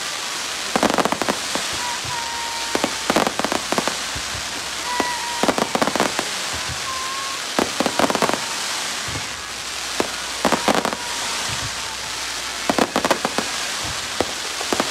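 Fireworks display: clusters of sharp crackling pops from rising comet shots, one cluster every two to three seconds, over a steady fizzing hiss.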